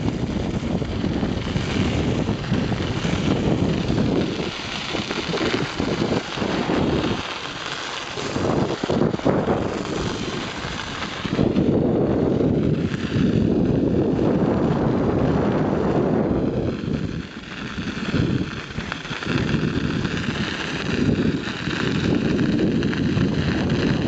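Wind buffeting the camera's microphone while cycling, a low rushing rumble that swells and fades, with brief lulls about eight and seventeen seconds in.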